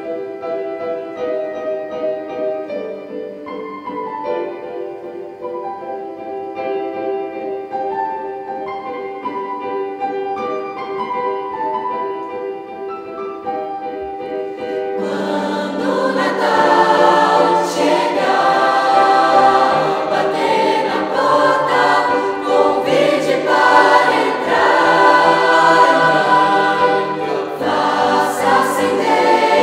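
A keyboard introduction of held notes and chords, then about halfway through a mixed youth choir of boys and girls comes in singing over it, much fuller and louder.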